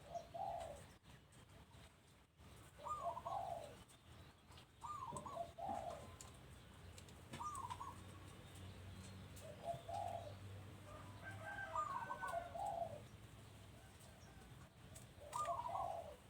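Doves cooing: short coos repeated about every two to three seconds, seven in all.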